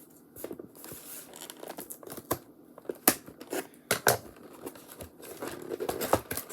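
Packaging of a slime kit being opened by hand: crinkling and tape being torn off the box, in irregular sharp crackles, loudest about three, four and six seconds in.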